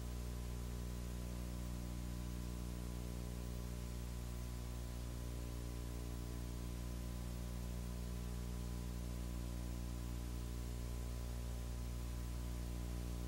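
Steady electrical hum, a stack of low even tones, under a constant hiss, with no other sound; typical of the noise floor of an old videotape recording.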